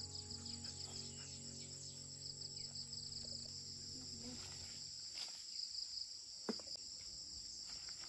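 Insect chorus: a steady, finely pulsing high-pitched trill, with a faint tap about six and a half seconds in.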